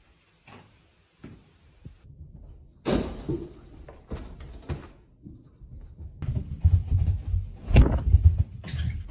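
A sliding glass door bangs about three seconds in. Later comes a run of heavy, uneven thumps and rustling.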